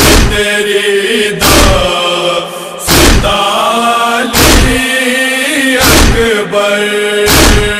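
Voices chanting a held, wordless noha lament line over heavy, evenly spaced chest-beating (matam) thumps, about one every second and a half.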